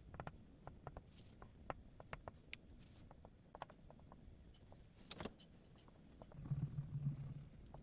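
Oil pastel tapping and dabbing on paper: faint, irregular quick taps, with a short louder low-pitched stretch near the end.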